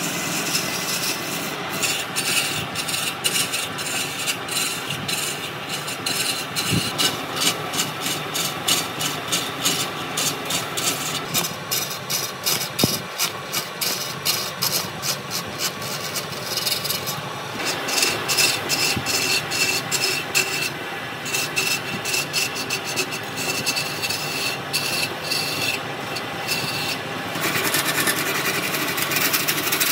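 Wood lathe roughing a spinning square wooden blank into a round, with a hand-held turning chisel cutting into it. It makes a continuous rough rasping cut full of rapid, irregular knocks, a little louder near the end.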